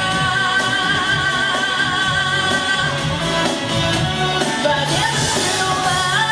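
A pop song played over a backing track with a steady beat, a female singer holding long notes; the pitch slides about five seconds in and a new, higher held note starts near the end.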